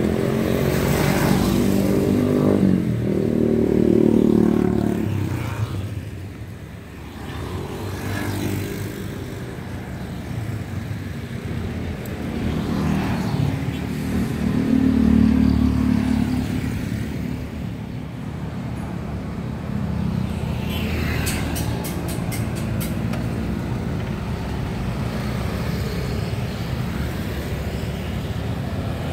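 Street traffic: motor scooters and cars passing close by one after another, engines swelling and fading, loudest about four seconds in and again around fifteen seconds in.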